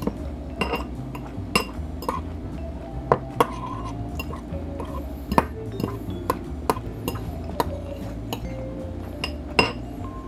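Metal fork clinking against a glass bowl of cucumber-and-vinegar dip: a dozen or so sharp clinks at uneven intervals, some ringing briefly. Background music with a steady beat plays underneath.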